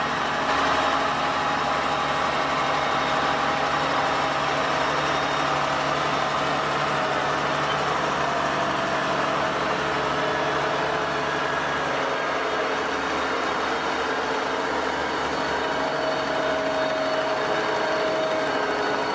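Potato-harvesting farm machinery running steadily: an engine working under load with several held whining tones over a constant rumble.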